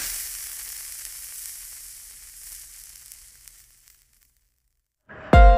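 Frying sizzle that starts loud and fades away over about four seconds to silence. Near the end, music comes in with a deep bass hit and ringing piano-like notes.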